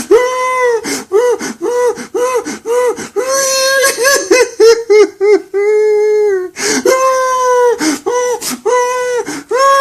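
A grown man crying like a baby: high-pitched wailing broken into short, rapid sobs, with a longer held wail and sharp gasping breaths, one at the start and another about seven seconds in.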